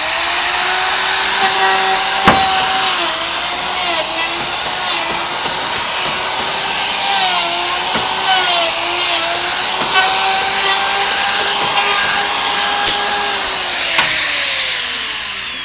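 Door hinge machine running, cutting the hinge mortises in a door. It makes a loud, high-pitched motor whine whose pitch dips briefly several times, with a few sharp clicks, then winds down with falling pitch near the end.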